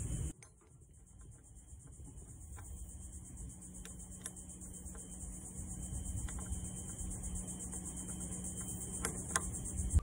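Steady high-pitched insect buzz with a faint low hum underneath, and a few light metallic clicks as stainless rigging hardware on the bowsprit is handled.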